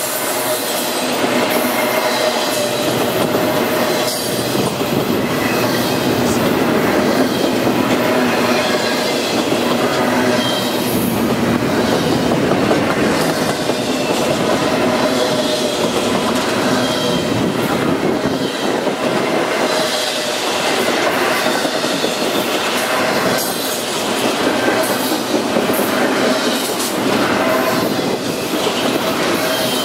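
Norfolk Southern double-stack intermodal freight train rolling past at close range: a steady, loud rumble of steel wheels on rail. A thin steady squeal of wheels runs over it, with scattered clacks.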